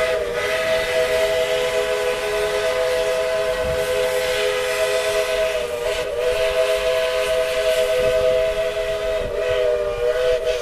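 Steam locomotive's chime whistle sounding one long, steady blast, several notes held together as a chord with a hiss of steam. It wavers briefly about six seconds in and again near the end.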